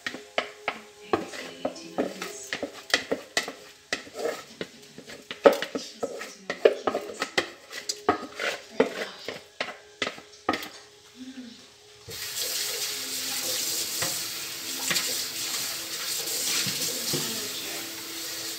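Dry rice pouring from a plastic bowl into a metal pot, a rapid patter of grains with knocks as the bowl is shaken and tapped against the pot to get the last grains out. About twelve seconds in, a steady hiss takes over.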